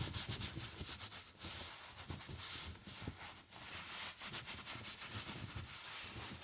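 Fabric rustling and rubbing, broken by irregular soft knocks and low thumps, as of clothes being rummaged through and handled.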